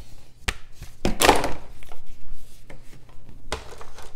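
Cardboard board-game components being handled on a wooden tabletop. A folded game board is set down with a sharp knock, then a louder brief rubbing slide just after a second in, and lighter cardboard taps follow.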